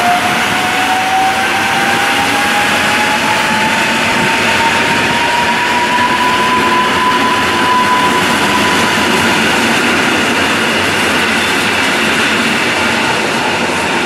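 EN57AKM electric multiple unit pulling away from the platform: an electric whine from its traction drive rises in pitch as it picks up speed, then levels off about halfway, over the steady noise of the wheels on the rails.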